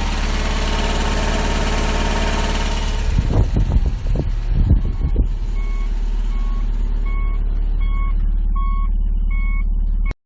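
Subaru Legacy BL5 running, with a steady hiss of road noise that drops away about three seconds in, followed by a few low knocks over the next two seconds. The engine then hums at idle under a parking-sensor beep that comes faster and louder, until the sound cuts off near the end.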